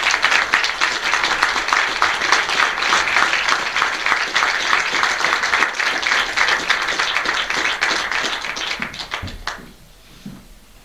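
A small audience applauding: dense, irregular hand-clapping that stops about nine and a half seconds in.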